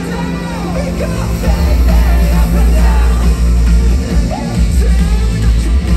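Live rock band playing loud, with vocals over heavy bass and drums; it gets louder about a second and a half in.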